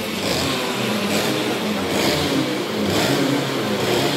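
Racing kart engine running steadily, with a hissing surge about once a second.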